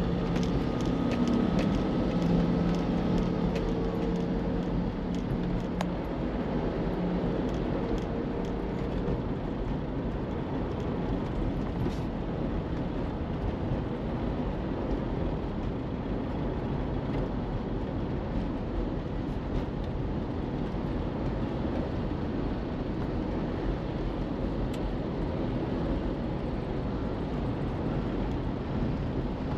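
City traffic and road noise heard from a car on the move: a steady rush of tyres and engines. In the first few seconds a nearby vehicle's engine hum stands out, with a slowly shifting tone.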